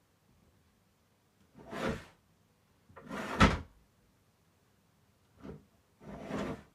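Wooden bedroom furniture being opened and shut: four short sliding, scraping sounds, the loudest ending in a sharp knock about three and a half seconds in.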